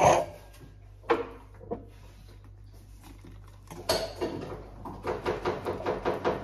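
A cocktail shaker and glasses clink a few times as the shaker is opened. Then, from about five seconds in, shaken espresso is poured into glasses in a quick run of regular pulses.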